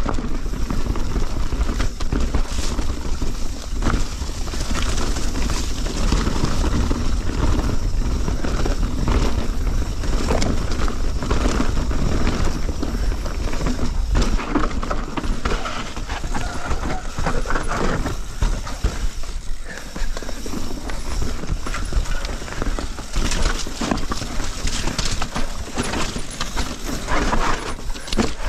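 Mountain bike descending a rough forest trail, heard from the bike: tyres rolling over dirt, roots and stones, with the bike rattling and clattering over every bump. Wind buffets the microphone throughout.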